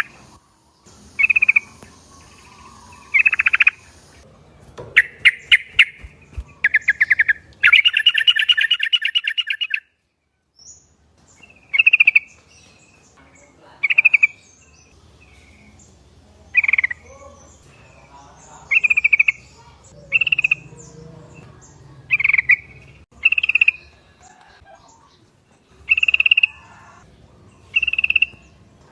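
Yellow-vented bulbuls calling: short bright chirping phrases, with a fast chattering trill a few seconds in, then single call notes repeating every second or two.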